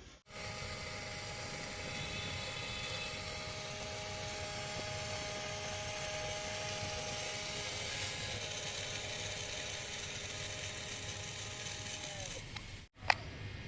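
Small electric motor of a toy remote-control crane whining steadily as it drives the crane, then dropping in pitch and stopping about twelve seconds in. A few sharp plastic clicks follow near the end.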